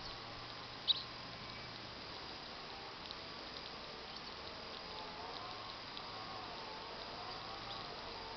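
Scattered short, high chirps from small birds over a faint steady background hiss, with one sharp, louder chirp about a second in.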